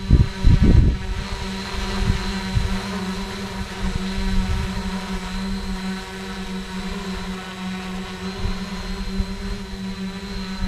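Quadcopter's electric motors and propellers humming steadily in a hover, one even pitch that barely changes. Low rumbling gusts hit the microphone during the first second.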